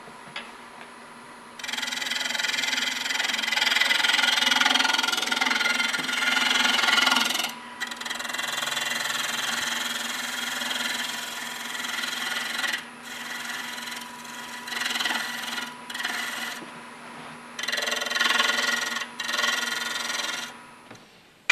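Bowl gouge cutting a spinning wood bowl blank on a wood lathe, shaping the bowl's outside: a hissing shear of shavings in one long pass starting about a second and a half in, then several shorter passes with pauses, over the steady hum of the running lathe.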